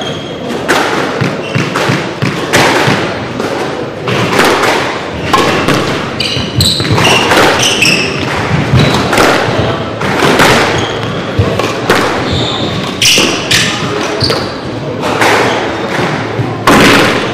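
Squash rally: the ball smacking off rackets and thudding against the front wall and glass at an uneven pace, with short high squeaks from shoes on the wooden court floor.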